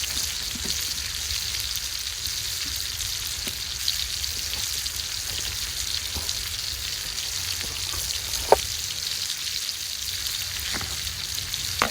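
Burger patties sizzling over a campfire as their fat melts off: a steady frying hiss with a few sharp pops, the loudest about eight and a half seconds in.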